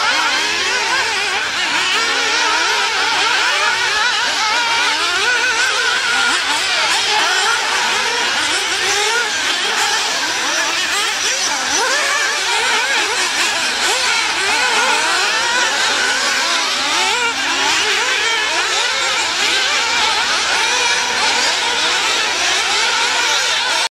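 Several 1/8-scale nitro off-road RC buggies running on a dirt track. Their small high-revving engines overlap, rising and falling in pitch as they accelerate and brake through the corners.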